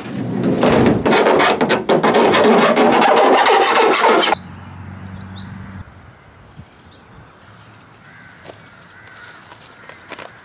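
Loud, harsh rasping of metal being worked at the edge of the freshly cut window opening in the van's sheet-steel side panel. It stops abruptly about four seconds in, leaving quieter rubbing and a few small knocks.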